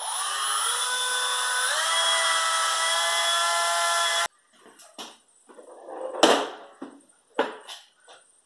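Cordless drill driving a self-drilling screw into aluminium angle bar: a steady motor whine that steps up in pitch partway through and cuts off suddenly about four seconds in. Then a few knocks and clunks, the loudest just after six seconds.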